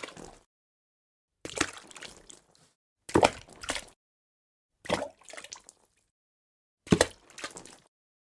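Water dripping, one drop about every two seconds, four drops in all. Each is a sharp plop followed by a brief patter of smaller splashes, with silence between drops.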